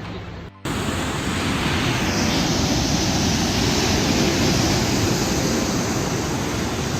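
Ocean surf washing onto the beach: a steady rush of noise that swells slightly toward the middle, starting abruptly about half a second in.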